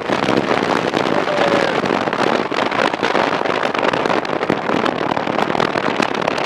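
Loud, steady crackling noise made of many rapid clicks and rustles, heard inside a moving cable car cabin.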